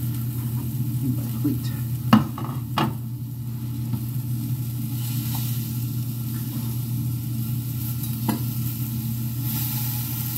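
Chicken frying with a steady sizzle over a low hum, while it is stirred and turned, with sharp knocks about two and three seconds in and again near eight seconds.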